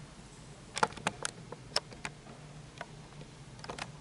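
A series of about eight light, irregularly spaced clicks and taps over quiet room tone with a faint steady low hum.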